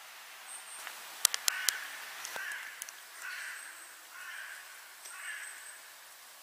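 A crow cawing, five harsh calls about a second apart. A quick run of sharp clicks comes just before the first call and is the loudest thing heard.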